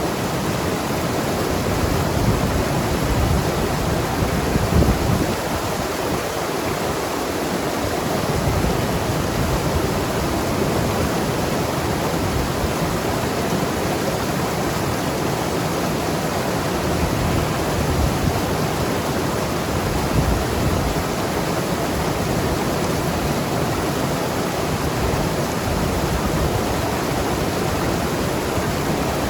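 Mountain river rushing and gurgling over rocks: a steady, dense wash of water noise with small surges in strength.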